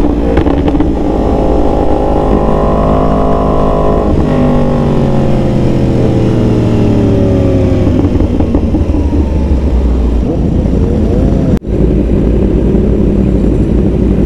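Sport-bike engine running under way, its pitch climbing over the first few seconds and then sliding slowly down as it eases off, over a steady low rumble, with a brief break about eleven and a half seconds in.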